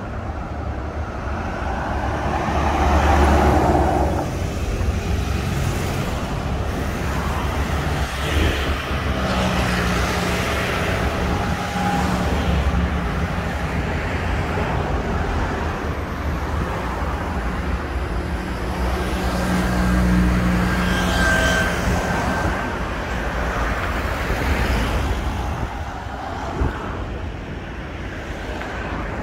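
Road traffic on a multi-lane highway: a continuous rumble of cars and tyres, with vehicles passing in louder swells about three seconds in, around ten seconds in and around twenty seconds in, each bringing a low engine drone.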